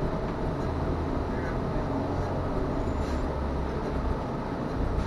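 Cabin noise of a trolley-styled tourist bus driving, heard from inside at the front: a steady low rumble of engine and road noise, with a brief high squeak about three seconds in.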